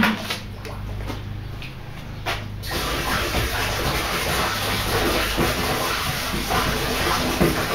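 Water poured from a plastic gallon jug into a plastic 55-gallon barrel, a steady splashing rush that starts abruptly about two and a half seconds in. Before it, a few faint clicks of the jug being handled.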